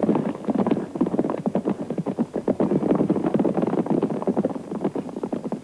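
Horse hooves galloping, a rapid clatter of strokes that fades away near the end.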